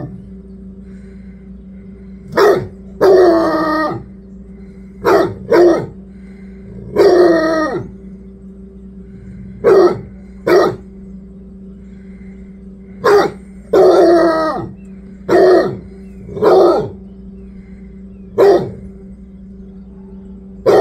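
Basset hound barking and baying: about a dozen calls at irregular intervals, some short barks and some drawn out for about a second, each falling in pitch. A steady low hum runs underneath.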